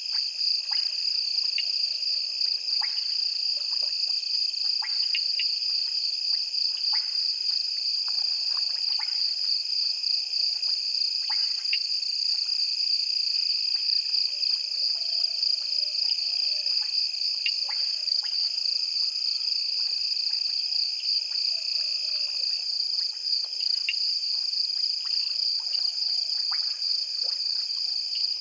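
Night chorus of insects and frogs at a waterhole: a steady, high, fast-pulsing insect trill, with short frog clicks and calls scattered through it.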